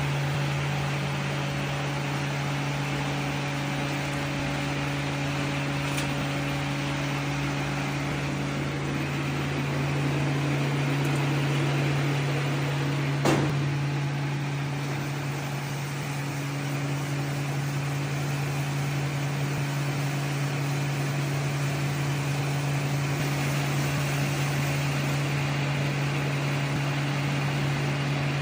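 Silage baling machine running with a steady low electric hum and mechanical noise, with a single sharp knock about halfway through.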